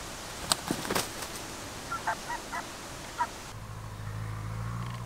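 A hen clucking: a few sharp rustles and a rasp, then four or five short clucks. A steady low hum comes in after the clucks.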